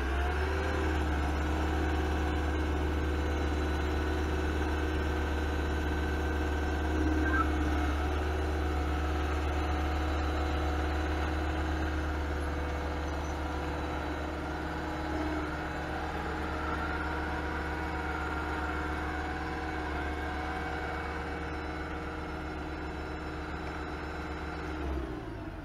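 Cat AP655F asphalt paver's diesel engine running steadily as the paver moves up to the back of a dump truck, a deep hum with a steady drone above it. The low hum drops away near the end.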